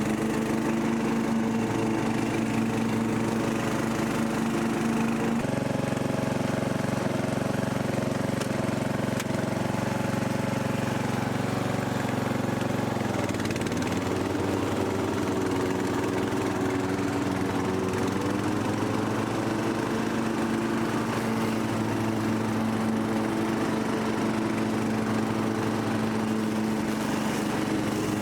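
Rebuilt Briggs and Stratton 17.5 HP lawn mower engine running steadily on its modified carburetor. Its speed changes: it picks up suddenly about five seconds in, sags and settles about halfway through, and shifts again a few seconds later.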